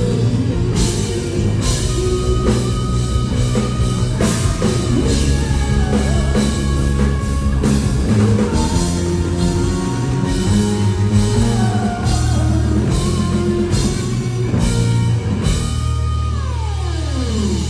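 Rock band playing: drum kit strokes in a steady beat over sustained bass and electric guitar. Near the end a note glides down in pitch over a held low chord.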